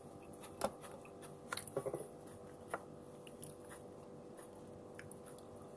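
A person chewing a mouthful of fried milkfish and rice eaten by hand, with a few sharp mouth clicks and smacks, several of them close together about two seconds in.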